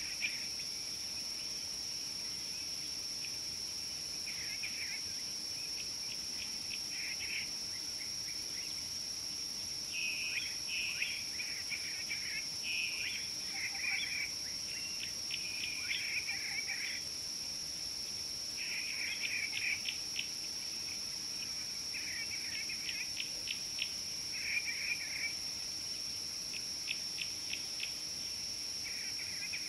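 Steady high-pitched drone of insects, with birds calling in short chirping phrases every few seconds, some as quick runs of ticking notes.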